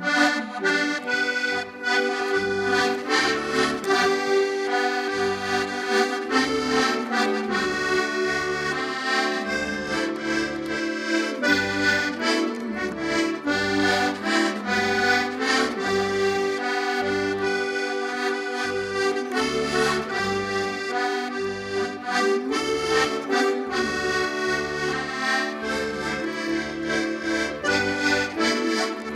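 Push button accordion playing a lively tune, the melody in chords over a bass that pulses about twice a second.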